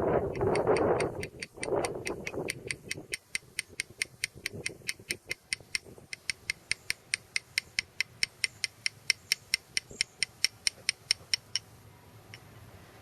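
Steady tapping of a hammer on a stone chisel dressing a limestone surface, about four crisp strikes a second, stopping near the end. A louder rushing noise sits under the first couple of seconds.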